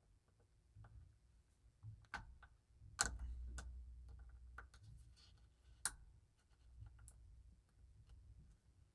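Faint small metallic clicks and scrapes from a spring bar tool working a spring bar into the lug holes of a watch case, with sharper clicks about three and six seconds in and some low handling rumble between them.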